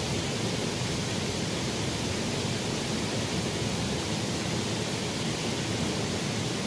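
Steady rushing of a small stream's flowing water, an even noise without breaks.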